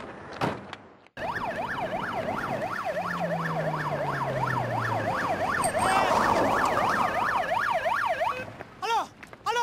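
Fire engine siren in a fast yelp, rising and falling about three times a second. It cuts in sharply about a second in and breaks off near the end.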